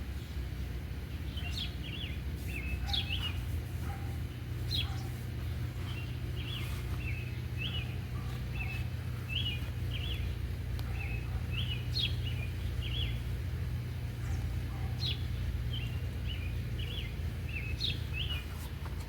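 Small songbirds chirping in short repeated phrases every second or two, over a steady low rumble.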